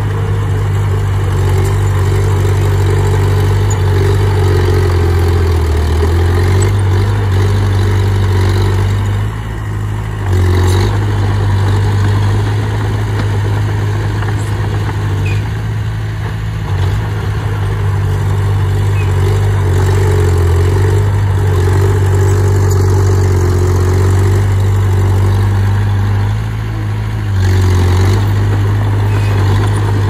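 Komatsu D20P bulldozer's diesel engine running steadily while working soil, its sound dropping briefly and picking back up three or four times.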